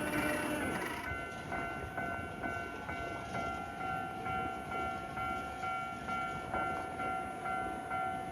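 Japanese level-crossing warning bell ringing at about two dings a second, with a second bell tone joining a few seconds in. Train running noise eases off about a second in, leaving the bell over a lighter rumble.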